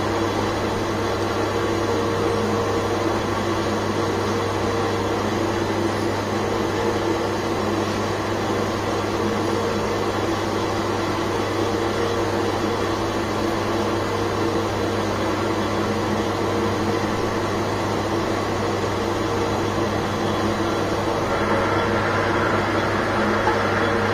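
Manual lathe running, its motor and spinning chuck giving a steady mechanical hum. A higher whine joins near the end.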